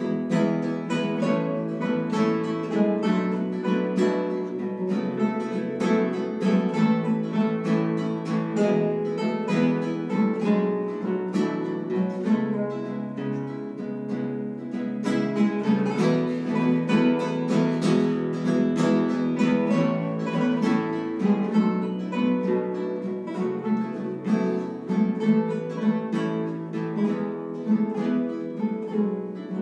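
A quartet of four nylon-string classical guitars playing an ensemble piece together, with layered plucked notes and chords sounding continuously. There is a slightly softer passage about halfway through.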